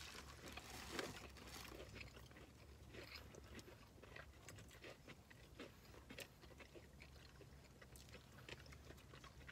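Quiet chewing and biting into crispy fried chicken sandwiches, with scattered small crunches of the breading.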